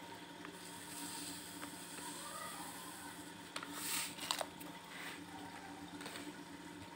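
Pot of water with whole spices bubbling faintly at a rolling boil, over a steady low hum. A few short taps and rustles come about four seconds in.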